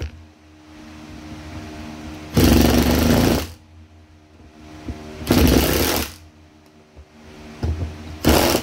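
Ryobi cordless impact driver hammering screws into a wooden block in three bursts: about a second long, then a shorter one, then a brief one near the end as the screw seats.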